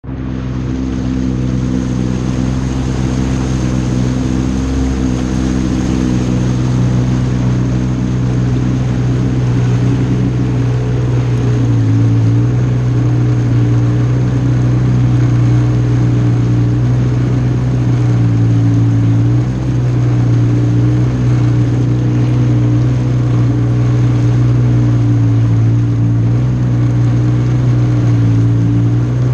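Jet ski engine running at a steady speed, its pitch dipping briefly three times.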